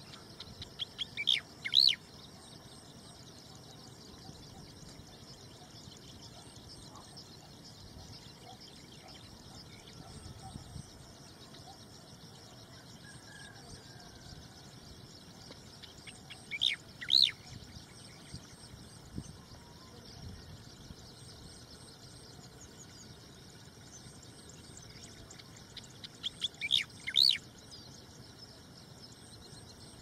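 Striated grassbird singing: three short song phrases spaced about ten seconds apart. Each is a quick run of high notes that builds to a loud final note.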